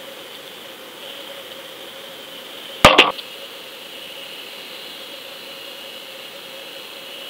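Underwater camera housing in the water: a steady hiss with a faint constant hum, broken about three seconds in by a sharp, loud clatter of two or three quick knocks, something striking the housing.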